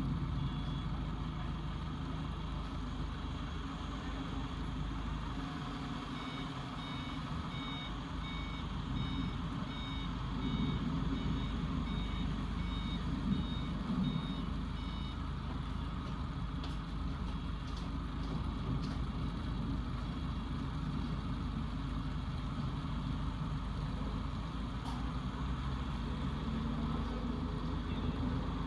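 A vehicle's reversing alarm beeping about twice a second for roughly nine seconds, starting about six seconds in, over a steady background of rain and street traffic noise.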